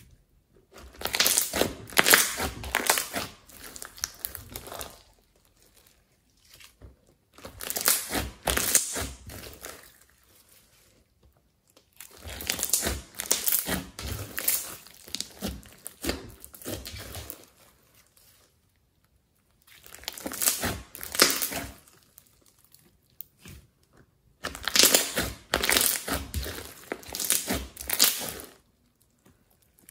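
Hands squeezing, kneading and stretching a large mass of glossy slime mixed with small foam beads, making sticky squelching and popping sounds. These come in about five bouts of a few seconds each, with short quiet pauses between.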